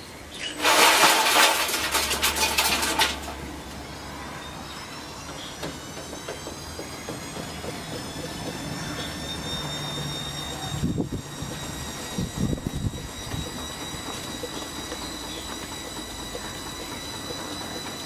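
Front-loading washing machine speeding up its drum: a loud rattling clatter for about two and a half seconds near the start, then the motor's whine rising in pitch and levelling off, with a few low knocks later on.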